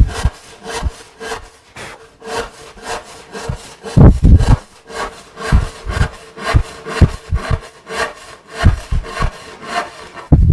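Fine-toothed 12-point-per-inch panel saw crosscutting a wooden board by hand: steady rhythmic rasping strokes, about two to three a second, with a few low knocks, the loudest about four seconds in.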